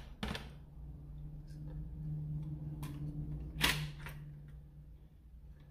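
Plastic parts of an X-Shot Longshot foam dart blaster clicking and knocking as the plunger assembly is handled and pulled apart, with a sharp click about a third of a second in and a louder one near four seconds, over a steady low hum.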